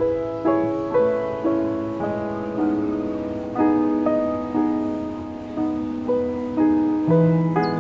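Slow, gentle piano music: single notes and chords struck about once a second, each ringing and fading before the next.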